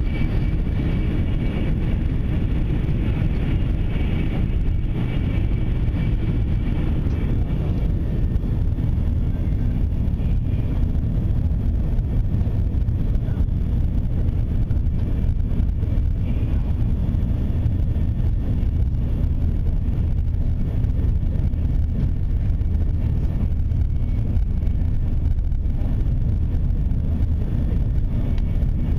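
Steady low rumble of a Shinkansen bullet train running at speed, heard from inside the passenger car.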